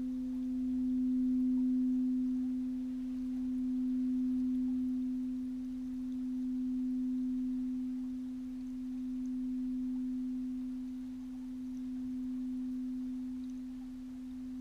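A C-note crystal singing bowl ringing on in one sustained pure tone, its loudness swelling and ebbing about every three seconds as it slowly fades.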